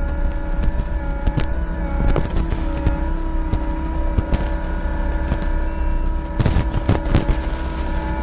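Skid steer engine running at a steady speed with a steady whine, with scattered sharp knocks and clanks and a cluster of louder ones near the end.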